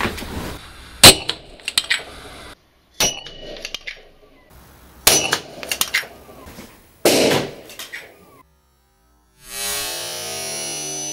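Small firecracker (minicicciolo) exploding under a plastic jar in a ceramic bowl: a sharp bang about a second in, then three quieter sharp cracks about two seconds apart. Background music with plucked strings starts near the end.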